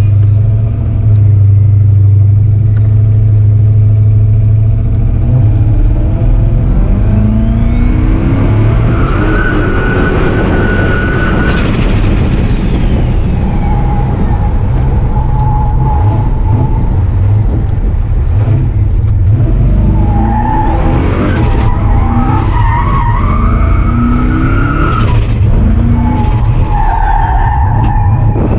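Turbocharged V8 Dodge pickup drifting: the engine revs up and down while the tyres squeal in long stretches, with a high whine rising and falling along with the revs.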